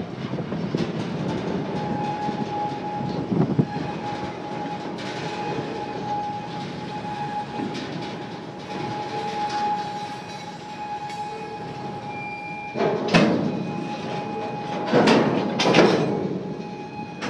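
Freight train cars moving slowly during switching, with a thin steady high squeal and several loud metallic clanks, one about 13 seconds in and two around 15–16 seconds.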